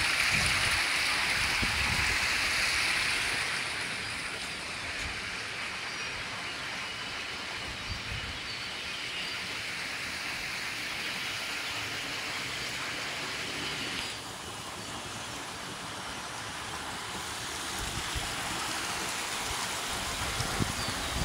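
Steady rush of water flowing in open concrete treatment basins, with low wind buffeting on the microphone at the start and near the end. The rush drops a little, suddenly, about two-thirds of the way through.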